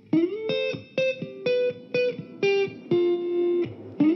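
Background music: plucked guitar notes in a steady run of about two a second, with one note sliding up at the start.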